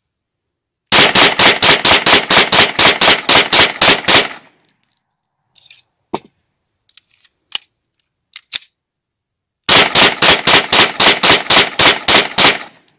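A 9mm FS-92 pistol, a copy of the Beretta 92FS, fired in two rapid strings of about fifteen shots each, roughly five a second. Between the strings come a few faint clicks of the pistol being reloaded with a fresh magazine.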